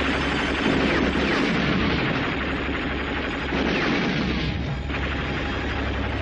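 Anti-aircraft guns firing in a dense, continuous barrage, shots and booms running together.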